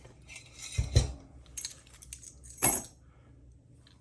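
Metal clinks and knocks from a padlock and lock-picking tools being handled and set down, several separate strikes with the loudest about two and a half seconds in.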